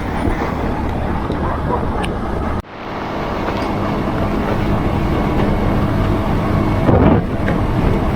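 Motorbike riding noise: wind rushing over the microphone mixed with the engine's steady hum and road noise while cruising. The sound cuts out briefly about two and a half seconds in, then builds back up.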